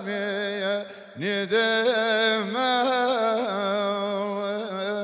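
Man singing a Kurdish maqam (meqam) in long held notes with wavering ornaments. He breaks off briefly about a second in, then slides up into a new sustained phrase.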